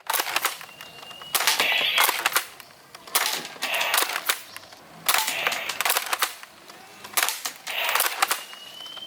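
Toy sniper rifle fired over and over, giving shot sounds about every one and a half to two seconds, with a short rising whistle twice.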